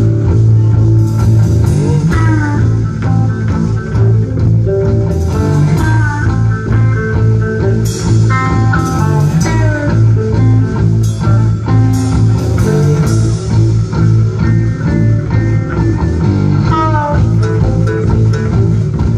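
Live rock band playing an instrumental passage: amplified electric guitars with lead lines bending in pitch over a steady, heavy bass line and a drum kit with cymbal crashes.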